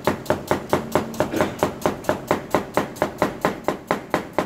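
Chef's knife slicing a peeled potato on a plastic cutting board: a quick, even run of knocks, about five cuts a second.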